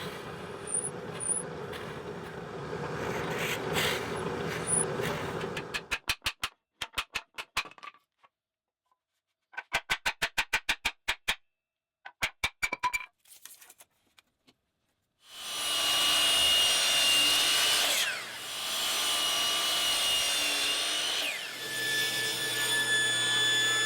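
Woodshop power-tool work, most likely a drill press drilling out wooden dowels: a steady motor run with a hum, then bursts of rapid, evenly spaced clicks separated by brief silences. About fifteen seconds in, a louder machine run with a high whine starts, its pitch dipping twice.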